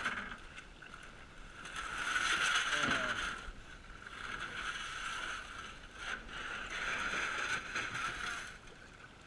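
Aluminum canoe being pushed off a sandy shore into shallow water: its hull scraping over the sand and the water sloshing, in three swells of about two seconds each. Heard muffled through a waterproof camera housing.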